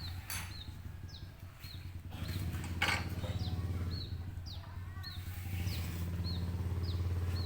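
A small bird calling over and over, quick high chirps about twice a second, over a steady low hum, with a few sharp knocks.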